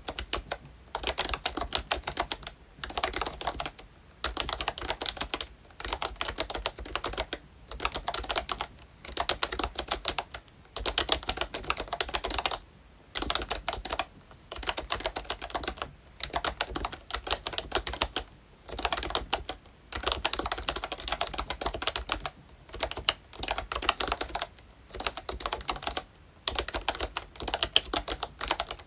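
Typing on a ROYCHE Disney Mickey Mouse retro membrane keyboard with round typewriter-style keycaps: rapid key clicks in runs of a second or two, broken by short pauses.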